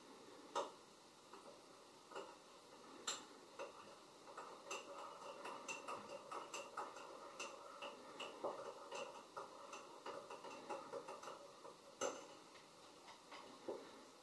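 Faint, irregular clicks and light taps. They are scattered at first, then come thickly for several seconds in the middle, with sharper single clicks about three seconds in and near the end.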